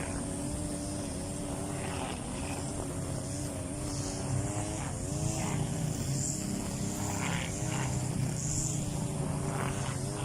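Motorised grass cutter running steadily, a continuous engine drone whose pitch wavers and dips briefly about halfway through.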